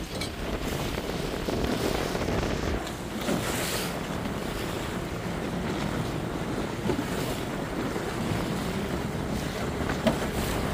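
Wind buffeting the microphone over the rush of choppy water against a motor boat's hull running through waves, with a few brief splashes.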